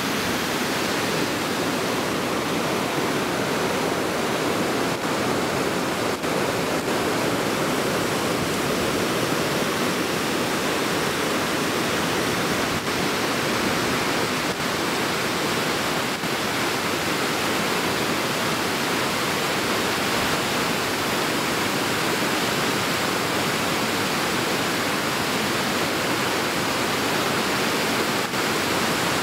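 Large whitewater river rapid rushing with a steady, unbroken sound of fast-flowing water.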